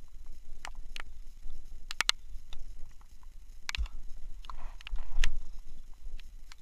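A cast with a spinning rod: a swish about halfway through as the rig flies out and line runs off the reel, among scattered small clicks of the reel and rod, then the reel is handled near the end. Wind rumbles on the microphone throughout.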